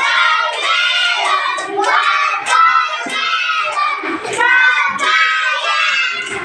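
A class of young children singing a song in unison with a woman's voice leading, clapping along in a steady beat.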